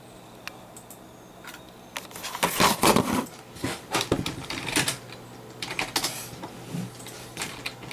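Typing on a computer keyboard: a couple of single key clicks, then bursts of quick, irregular keystrokes from about two seconds in.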